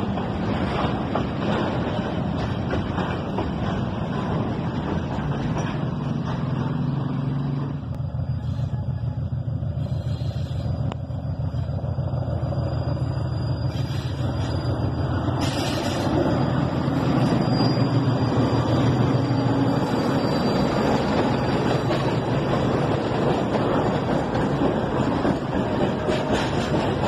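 Freight trains on the line: the low, steady hum of a diesel locomotive engine, changing abruptly about eight seconds in. A locomotive hauling boxcars and tank wagons then approaches and passes with a loud rumble of engine and wheels on the rails, loudest a little past halfway and going on to the end.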